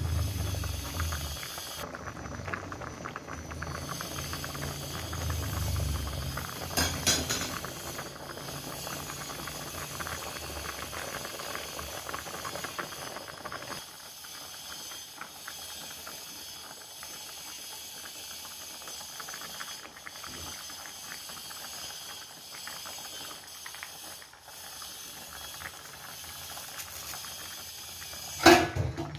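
Sauce with pangasius fish boiling hard in a wok, a steady bubbling hiss that settles down somewhat about halfway through. Near the end a metal spatula clatters sharply against the wok.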